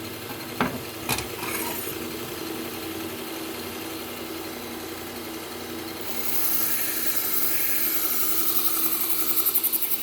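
Belt sharpener running with a steady hum, with two sharp knocks about half a second and a second in. From about six seconds a knife blade is drawn across the fine Trizact abrasive belt, making a steady high hiss: the stage that refines an edge after the burr has been raised.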